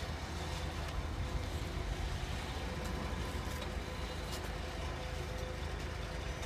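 Heavy diesel engine running steadily, a continuous low drone with no change in speed.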